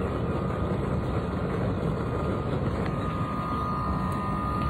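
Wood fire in a BioLite FirePit+ burning hard under its fan, which blows air through the coals: a steady, even rush of flame and air. A thin steady tone joins about three seconds in.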